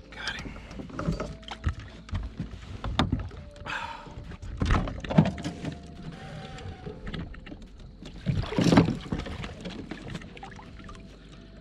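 Irregular knocks and thumps against the kayak and its gear as a big blue catfish is landed and hauled aboard, with a louder scuffling burst about three quarters of the way through.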